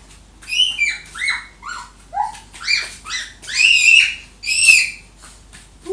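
A toddler's high-pitched squeals: a quick run of about ten short cries, each rising and falling in pitch.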